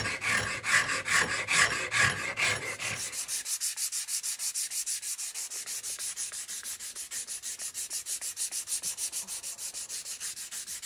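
Sandpaper rubbed by hand over the wooden grip of a shotgun stock, smoothing the grip and palm swell, in quick even back-and-forth strokes. For about the first three seconds the strokes are heavier and slower, about two a second. After that they turn light and thin, about six a second.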